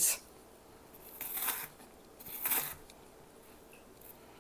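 Kitchen knife cutting through an onion on a plastic cutting board: two short, crunchy slices about a second apart.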